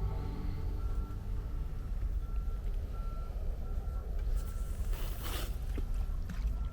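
Short electronic beeps repeating at an even pace, about one or two a second, over a steady low rumble, with a brief rustling burst about five seconds in.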